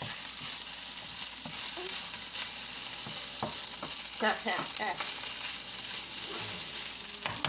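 Fried rice sizzling in a hot pan as it is stirred, a steady hiss. A brief pitched call sounds about four seconds in.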